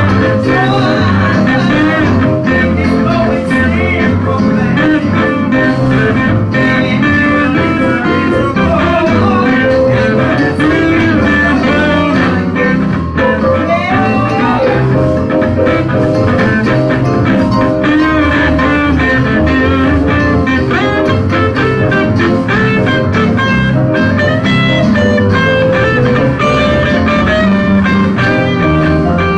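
Live church band playing blues-tinged gospel music: a lead guitar with bending notes over bass and a steady beat.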